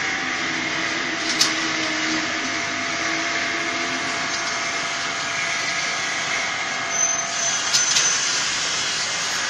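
Continuous frying machine running: a steady mechanical hum and hiss from its conveyor drive, with a few sharp clicks, one about a second and a half in and two near the end.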